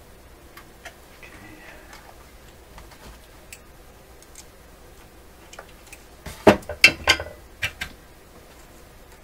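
Light scattered clicks, then a quick run of five or six sharp clicks and taps about six and a half seconds in, from small hand tools and parts being handled during a capacitor replacement.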